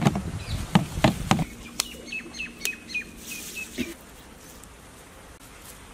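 Plastic-gloved hands rustling and scraping through a dry flour and breadcrumb coating mix in a steel bowl for about the first second and a half. Then a bird chirps a quick run of short repeated notes for about two seconds, ending with a sharp tap about four seconds in.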